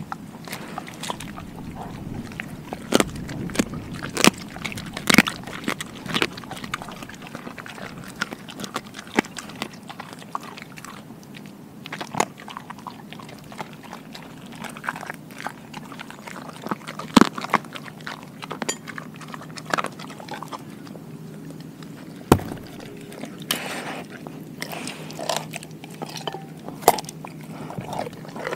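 A Doberman chewing and crunching a whole raw Cornish hen, with irregular sharp cracks as she bites through the bones amid wet chewing.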